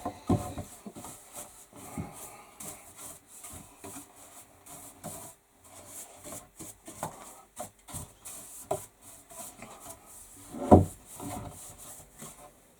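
Sandpaper or abrasive rubbed by hand on a solid-oak table spindle in quick back-and-forth strokes, about two or three a second, with one louder wooden knock near the end.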